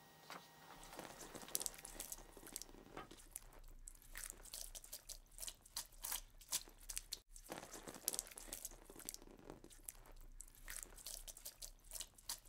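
Faint, irregular crackling clicks over a low steady hum.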